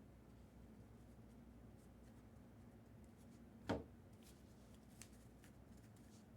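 Quiet handling of trading cards and packs on a table: faint clicks and light rustles, with one sharp thump about four seconds in, followed by a few small ticks.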